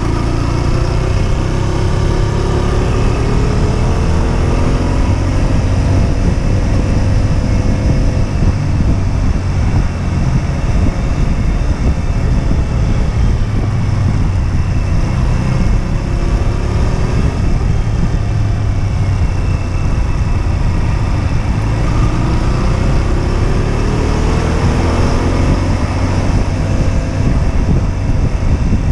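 Husqvarna Svartpilen 125's single-cylinder engine under way on the road, its pitch climbing and dropping again several times as the revs rise and fall. Heavy low wind rumble on the microphone runs under it.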